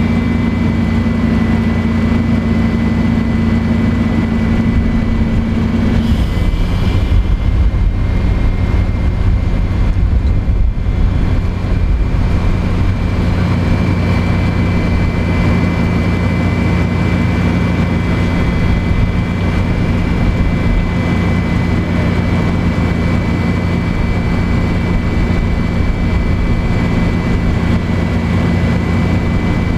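Iveco city bus idling at a stop: a steady low engine hum with a thin, steady high whine over it. One of the low tones drops away about six seconds in.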